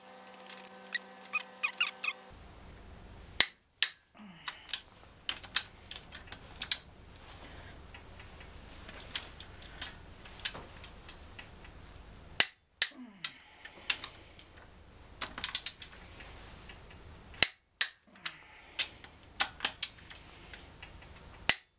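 Socket ratchet wrench clicking in quick runs of pawl clicks as the bearing cap bolts on the Continental Z129 engine's crankshaft are tightened. A few louder single clicks come several seconds apart.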